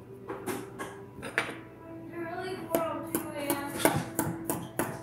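Metal fork tapping and scraping through play sand onto a wooden tabletop: a run of sharp clicks, thickest in the second half, over steady background music.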